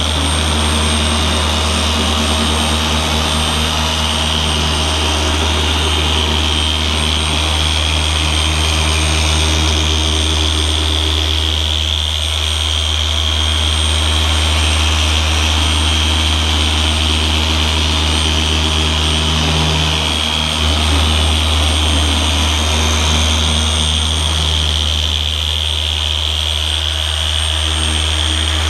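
Griot's Garage G9 random orbital polisher running at speed 4 with a 5-inch backing plate and foam pad, working polish across a painted panel: a steady hum with a high whine. Its note shifts slightly about twenty seconds in.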